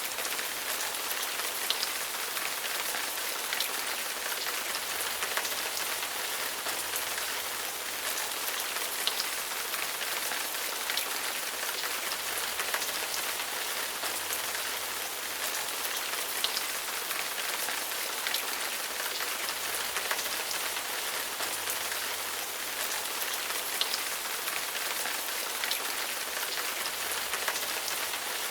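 Steady rain falling: a dense, even hiss with many individual drops ticking through it.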